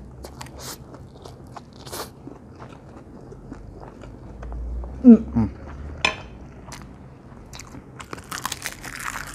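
Close-up mouth sounds of a person eating stir-fried instant noodles: slurping in a mouthful, then chewing with many small wet clicks. About five seconds in there is a short, loud vocal sound that falls in pitch, and near the end a light rustle as a sheet of dried seaweed is handled.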